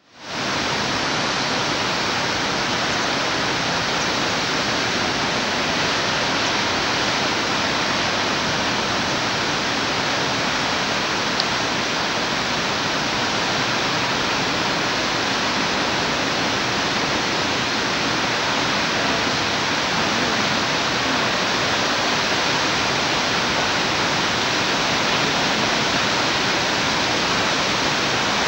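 Shōmyō Falls, a 350 m waterfall at heavy snowmelt flow, pouring in a steady, unbroken rush of water noise. It fades in at the very start and then holds level.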